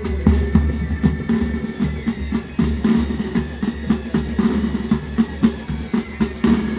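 Military pipe band playing: snare and bass drums beat out a dense, driving rhythm over the bagpipes' steady drone and melody.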